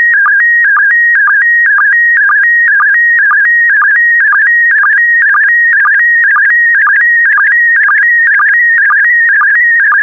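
Slow-scan television (SSTV) picture signal in PD120 mode: a loud electronic tone warbling between a few high pitches as it carries the image, with a brief lower sync blip repeating about twice a second, one for each pair of scan lines.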